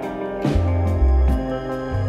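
Instrumental background music: held chords over a moving bass line, with a few drum hits.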